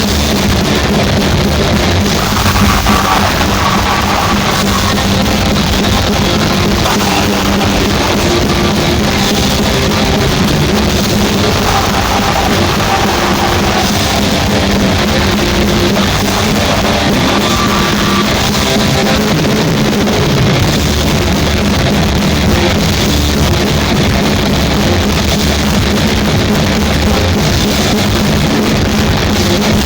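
Loud live heavy metal band playing: electric guitars, bass and drum kit in one dense, unbroken wall of sound.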